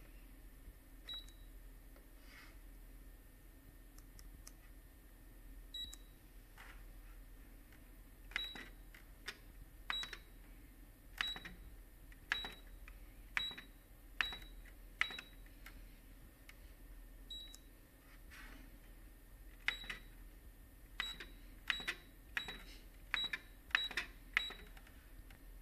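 Control-panel keys on a Canon imageRUNNER 2520 copier being pressed, each press giving a click and a short high beep that confirms the key. A few single presses come first, then two quick runs of about eight to ten presses each as the System Manager ID and password are keyed in.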